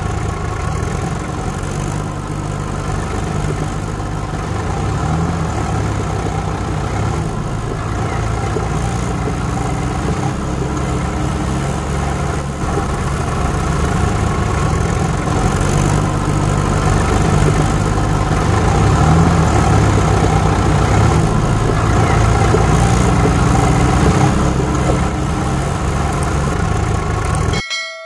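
Vehicle engine running steadily at idle, a low, continuous rumble that grows slowly louder and cuts off abruptly near the end.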